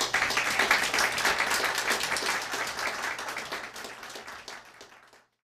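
Audience applauding, many hands clapping, slowly thinning out and then cutting off abruptly about five seconds in.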